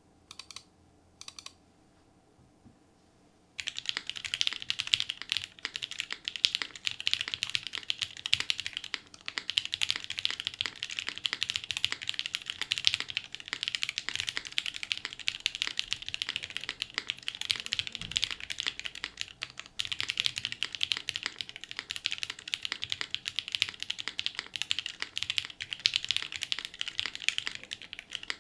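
Typing on a mechanical keyboard: an ai03 Vega with lubed SP-Star Sacramento linear switches on a polycarbonate plate and GMK keycaps. A few single keystrokes, then steady fast typing from about three and a half seconds in.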